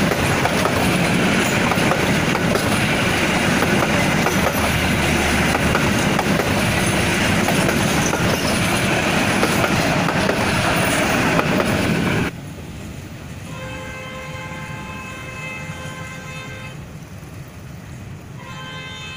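Passenger train coaches rolling past close by, a loud, steady rush of wheels on rail. About twelve seconds in this cuts off abruptly to a quieter scene in which a distant train horn sounds two long, steady blasts.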